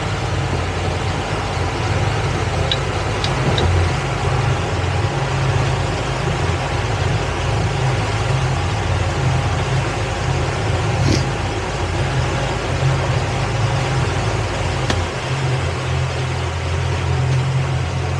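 A towboat's engine running steadily under way at low speed, a low, even hum. The deepest part of the rumble drops away about three seconds before the end.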